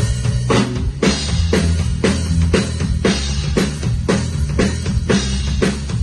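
Drum kit played in a steady beat, with hits about twice a second, over a bass line.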